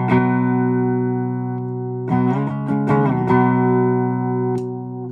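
Esquire-style electric guitar on its bridge pickup with the tone control bypassed, played through a Fender Deluxe Reverb amp. A chord rings out, a few more strums come about two seconds in, and they are left to decay.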